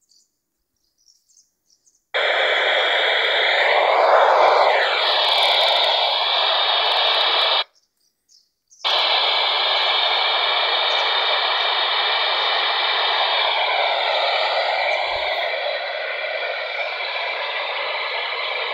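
Uniden Bearcat handheld scanner on the 145.800 MHz ISS downlink with its squelch open on static: a loud, steady FM hiss with faint wavering tones in it and no voice. The hiss starts about two seconds in, drops out for about a second midway, then resumes, typical of the station's signal having faded.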